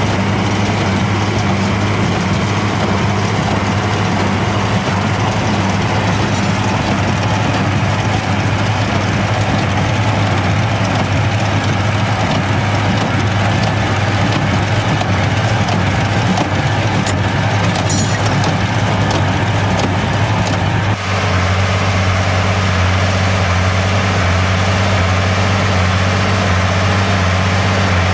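International Farmall 966 tractor engine running steadily while pulling a New Holland 5080 small square baler, a constant low drone with the baler working behind it. About three-quarters of the way through, the sound changes abruptly to a slightly different steady engine drone.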